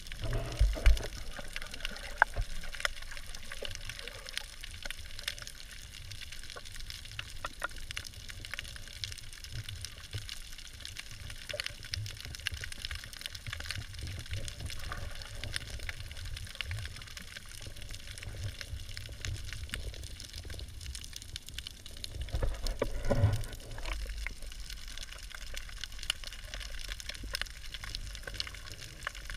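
Water sounds heard through an action camera held in the sea: a steady low rumble of moving water with many faint scattered clicks, a few low thumps as it splashes at the surface in the first second, and a louder gurgling swell a little over twenty seconds in.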